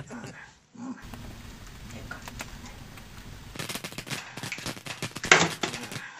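Cooking noise at the stovetop: a steady sizzling hiss, then a quick run of sharp crackles and clacks from the pans in the last two seconds or so, loudest about five seconds in.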